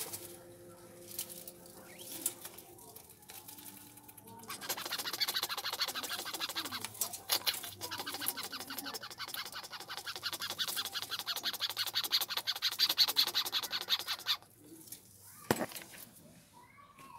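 Grasscutters (cane rats) chewing grass stems, a fast, continuous crunching that starts about four seconds in and stops about ten seconds later. A single sharp knock follows.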